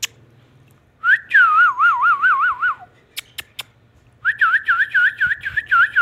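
Two warbling, trilled whistles, each about two seconds long, wavering quickly up and down in pitch, with three sharp clicks in the pause between them.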